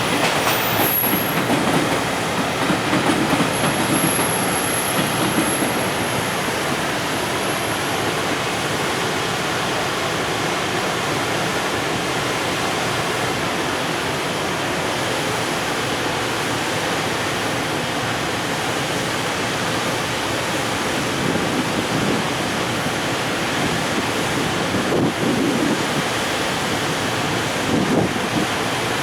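Container freight train rolling slowly out of a station with a steady rumble of wagon wheels on the rails. A thin, high wheel squeal sounds from about four to seven seconds in.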